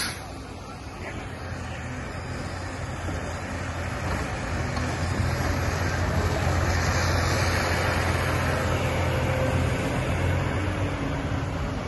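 Heavy diesel engines of a dump truck and a Komatsu PC300LC excavator running, a steady low hum that grows louder about four seconds in.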